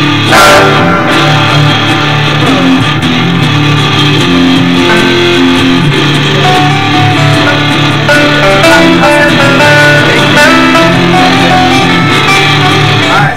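Guitars played together, loud and close: an electric guitar and an acoustic guitar jamming at band practice, with held, ringing notes.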